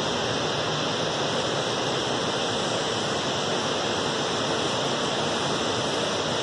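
Steady, unbroken rushing noise.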